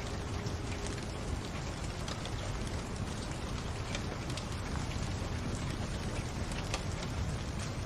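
Fireplace fire crackling: a steady hiss with scattered sharp pops and ticks.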